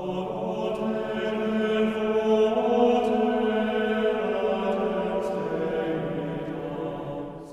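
Choir-like chanted vocal music: one long held chord that swells in the middle and fades away at the end.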